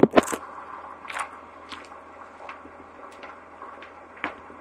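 Holden Commodore idling through its custom exhaust: a steady low note with light, irregular ticks about every half second. Two sharp knocks come at the very start.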